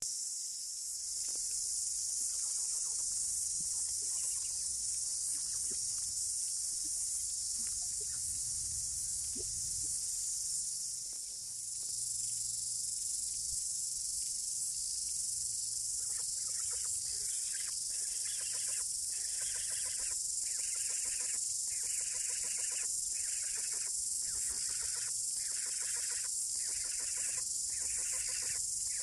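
Steady high-pitched insect chorus, with a buzzing call starting about halfway and then repeating about once a second.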